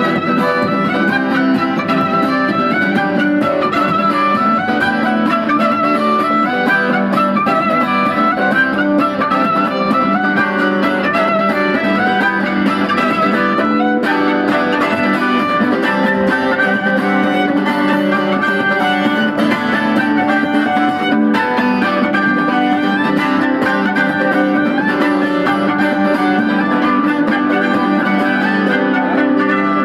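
Violin and acoustic guitar playing a tune together, the violin carrying a wavering melody over the guitar's steady accompaniment.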